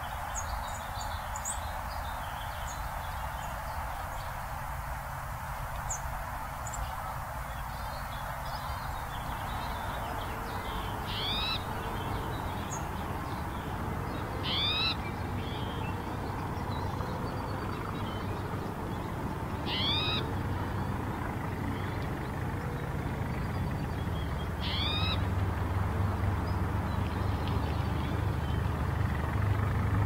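A spotted towhee giving its buzzy, mewing call four times, about every five seconds, over a steady low rumble that grows louder near the end. Faint high chips from other small birds come in the first few seconds.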